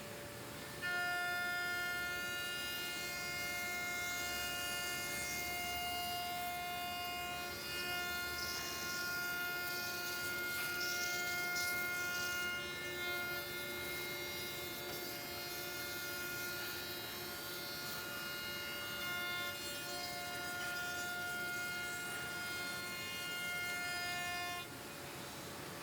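SEMAC SM 1325R1 CNC router running, its spindle and drives giving a steady high whine of several tones that starts about a second in and stops near the end.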